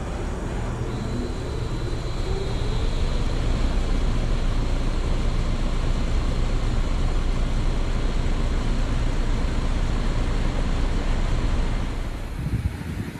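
2006 Trane XL19i outdoor heat pump unit running in heat mode, with a steady low compressor hum and fan noise. It builds up over the first few seconds as it comes up to speed, then holds steady, and falls away near the end.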